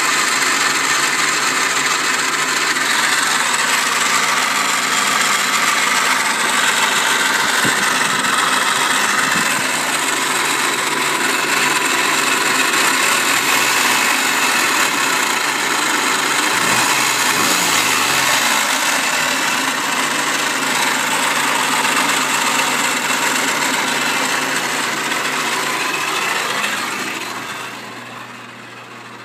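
Subaru Forester's flat-four engine running with a loud, steady noise from the front of the engine, the sign of a failing bearing in one of the timing belt pulleys. The noise drops in level near the end.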